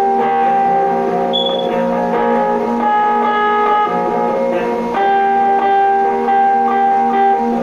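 Electric guitar played slowly: chords and notes left to ring out, changing every few seconds.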